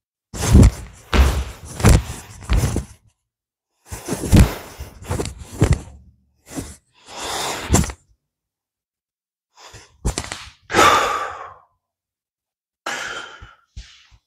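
Bare movement sounds of a kung fu form: feet stomping and landing on a wooden floor and hands slapping, with the loose cloth of a long robe snapping and swishing between the strikes. The thuds come in irregular clusters, with silent pauses between them.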